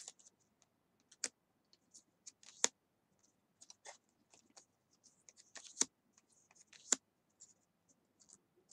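Stiff oracle cards being handled and laid one at a time onto a pile: faint sliding scrapes and small sharp taps, irregular, with the loudest taps a little past a second in, near three seconds, and around six and seven seconds.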